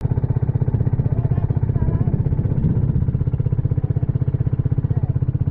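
Outrigger boat's small inboard engine running steadily under way, with a fast, even beat.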